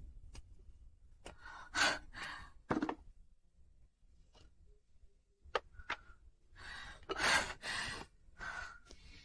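A person's soft breaths and sighs: several short exhales come and go, the longest a little past the middle, with a faint click in between.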